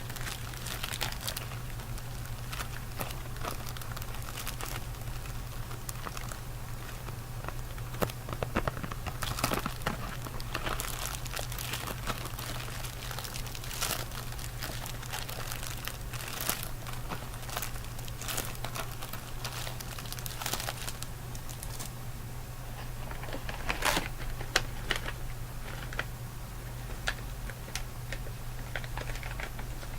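Candy wrapper packaging crinkling and crackling as it is handled, in irregular bursts of small crackles with a few louder ones, over a steady low hum.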